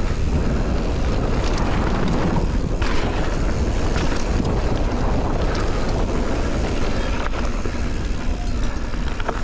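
Wind buffeting the microphone and knobby mountain-bike tyres rolling fast over grass and dirt on a descent, a steady rushing noise with a few sharp knocks along the way.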